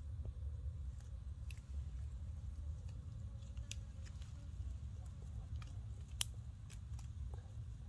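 Baby macaque chewing and smacking on a piece of fruit: a few small, sharp, scattered clicks over a steady low rumble.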